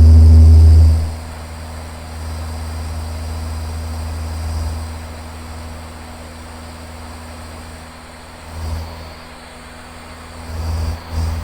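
Low rumble of a Van's RV-7's engine and airflow heard in flight through a cockpit headset microphone. A loud low blast at the start drops away after about a second, and a few softer low swells come near the end.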